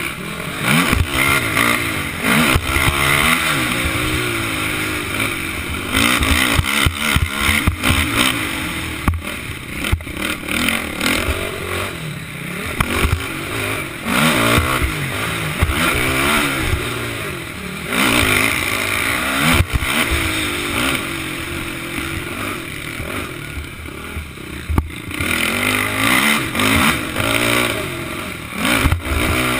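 Racing quad's (ATV's) engine revving hard and dropping off over and over as it is ridden around a dirt motocross track: the pitch climbs through each burst of throttle, then falls, every few seconds. Rattling and wind noise on the helmet camera run under it.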